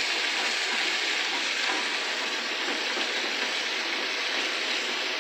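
Hamburger patties sizzling steadily in a nonstick frying pan, with a plastic spatula scraping and pressing at the meat.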